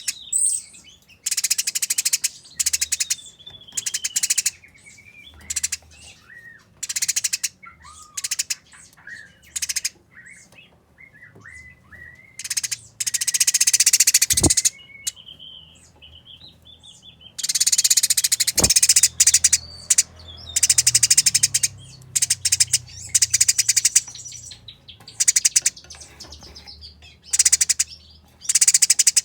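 Eurasian tree sparrows calling in fighting mode: harsh, rapid chattering in dense bursts lasting from under a second to several seconds, with a few thin falling whistled notes between the bursts.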